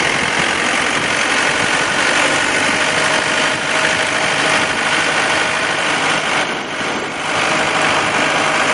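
Compact farm tractor engine running steadily as the tractor drives along a dirt road, with a brief dip in loudness about six and a half seconds in.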